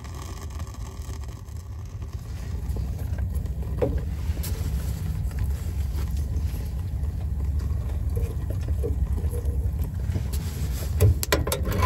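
Freshly lit kindling catching in a small stainless-steel camping wood stove, a low steady rumble of the fire drawing that builds over the first few seconds and then holds. A few light clicks and knocks near the end as more wood is fed in.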